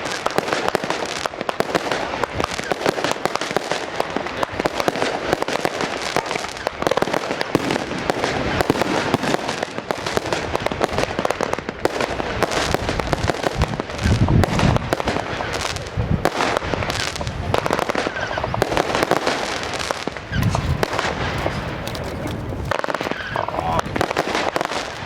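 Fireworks display with dense, continuous crackling and popping of bursting shells, and deep booms about 14 seconds and 20 seconds in.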